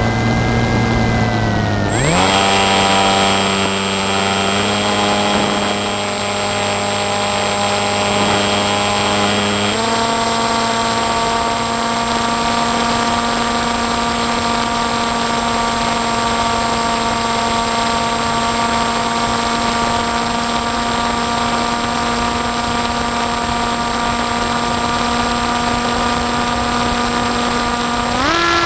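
Electric motor and propeller of an FPV drone in flight: a steady whine that steps up and down in pitch with throttle changes about two, five and ten seconds in, then holds one pitch, and rises briefly near the end.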